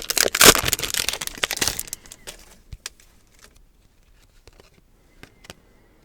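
Trading-card pack wrapper crinkling and tearing open for about two seconds, then a few faint clicks and taps as the cards are handled.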